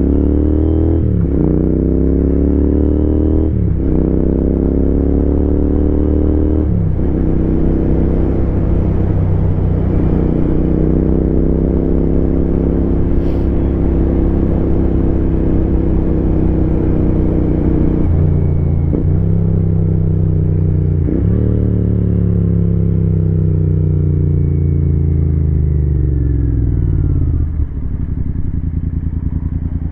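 Royal Enfield Continental GT 650's 648 cc parallel-twin engine accelerating through the gears, with three upshifts in the first seven seconds, then holding a steady cruise. The revs fall away through a few more gear changes and the engine drops to idle near the end.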